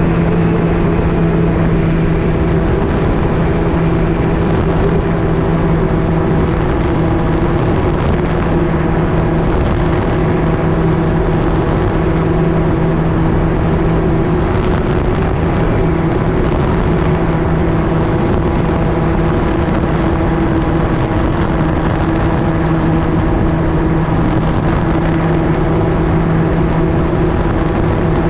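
MTO-S gyroplane's engine and pusher propeller running steadily, with a dense rush of wind noise over it.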